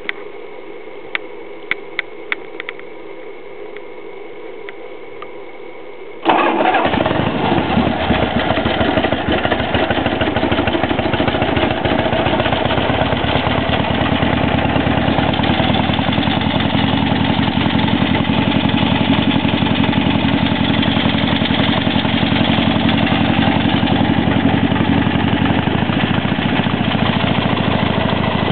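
A few sharp clicks, then about six seconds in the 1971 Harley-Davidson XLH Ironhead Sportster's V-twin engine fires up through its shotgun exhaust pipes and settles into a steady, loud idle.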